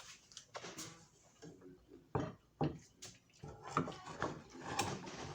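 Eating at the table: scattered small clicks of cutlery on a plate and mouth sounds of chewing, with a few brief murmurs.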